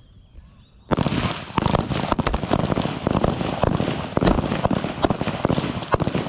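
Rifle fire from several M4-type carbines on a firing line: after about a second of quiet, a loud, rapid run of overlapping shots begins and keeps going.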